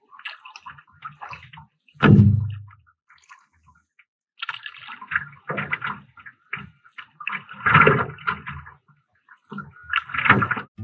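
Paddle strokes in the sea beside a stand-up paddleboard: water splashing and sloshing in bursts every two to three seconds, with a loud thump about two seconds in.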